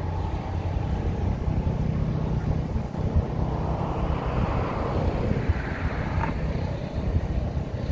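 Street traffic noise with wind buffeting the microphone; a vehicle passing swells up and fades away around the middle.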